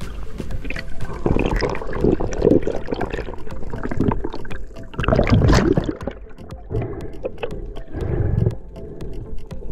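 Water rushing and bubbling against an underwater camera as a skin diver swims, coming in uneven surges.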